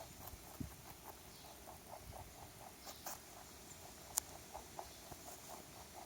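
Rabbit chewing a carrot: quick, steady crunching at about four to five bites a second, with one sharper click about four seconds in.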